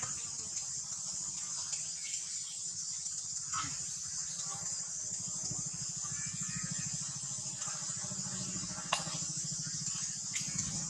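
A steady high-pitched insect chorus, like crickets or cicadas, over a low steady hum, with a few short sharp clicks; the loudest click comes about nine seconds in.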